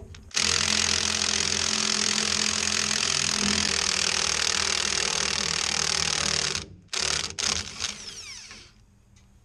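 Cordless impact wrench hammering on a rusted, torch-heated U-bolt nut on a leaf spring, breaking it loose. It runs steadily for about six seconds, stops briefly, gives a short second burst, then winds down with a falling whine.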